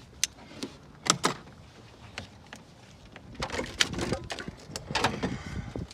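Hand-tool work at a car battery terminal: a few sharp metal clicks, then a busier stretch of clicking and scraping from about three seconds in.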